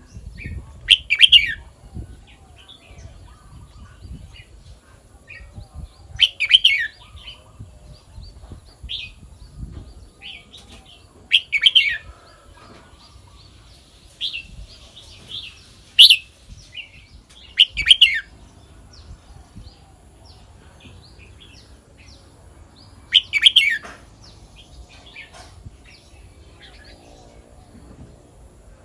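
Red-whiskered bulbul singing: six short, loud song phrases spaced a few seconds apart, with softer chirps in between.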